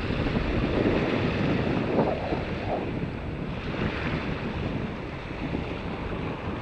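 Wind buffeting the microphone over small waves washing onto the beach: a steady rushing with gentle swells.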